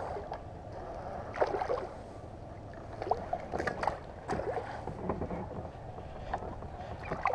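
Water gurgling and splashing lightly around a kayak, with wind on the microphone and scattered light clicks and knocks of fishing gear, while a hooked bass is being brought in.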